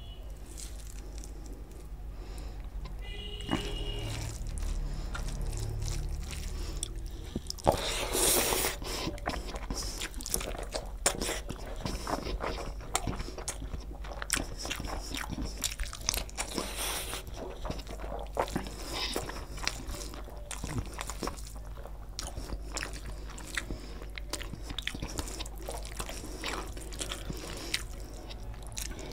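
Close-miked eating sounds of a man eating rice and egg curry by hand: wet chewing, lip smacking and crunching. The sounds are sparse for the first several seconds and become dense from about eight seconds in.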